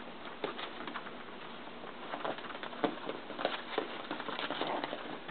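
Yorkshire terrier puppies playing: small grunts and play growls mixed with scattered taps of paws and claws on the hard floor.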